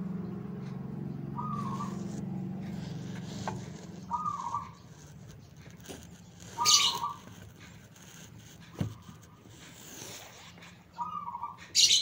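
Zebra dove (perkutut) cooing: short curled phrases repeated about four times, a few seconds apart. Two louder, hissy higher-pitched bursts come just before the middle and near the end, and a low hum runs under the first few seconds.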